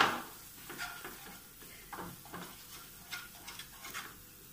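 Wooden spatula stirring and scraping a thick chilli masala paste around a non-stick kadai, in irregular strokes roughly every half second, the first one the loudest, over a faint sizzle.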